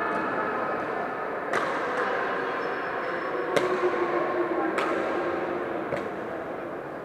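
Badminton rackets striking a shuttlecock in a rally: four sharp hits, a second or two apart, over a steady background hubbub.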